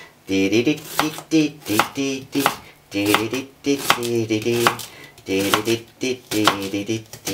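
A knife chopping an onion on a wooden cutting board, with sharp knocks every half second or so, while a man hums a wordless tune.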